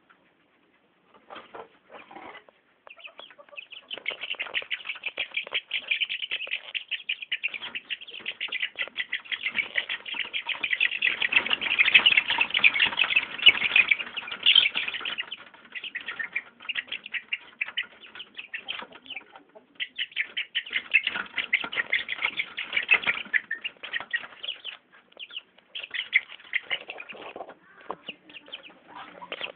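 Young chickens flapping their wings in a dense, rapid fluttering. It is loudest in the middle, fades, then picks up again later.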